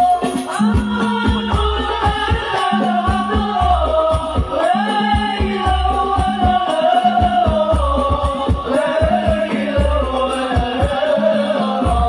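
Hadrah sholawat music: a voice sings a gliding melody over hand drums, with a regular low bass-drum beat and busy rattling strikes.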